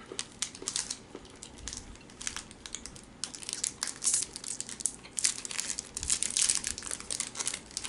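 Wrapper of an Aero chocolate bar crinkling as it is opened by hand: a dense run of sharp crackles that grows louder about three seconds in.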